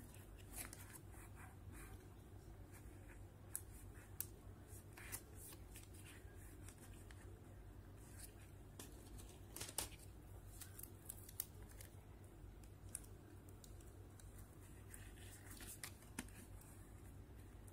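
Faint, scattered clicks and taps of fingers handling and pressing an opened Asus Zenfone Go smartphone's plastic frame and internal parts, the sharpest about ten seconds in, over a low steady hum.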